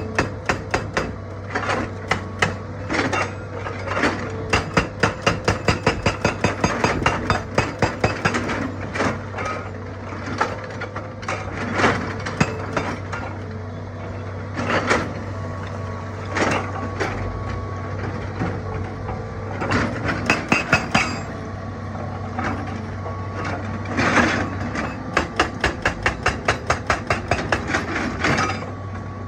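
Excavator-mounted hydraulic rock breaker hammering on stone in runs of rapid, evenly spaced blows, about three a second, with short pauses between runs, over the steady drone of the excavator's diesel engine.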